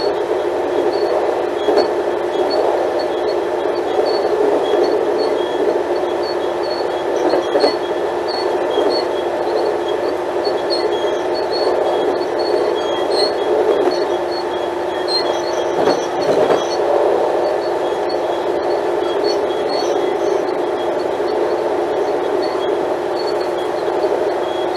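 Diesel engine of an Alstom Coradia LINT 41/H diesel multiple unit running with a steady, even hum.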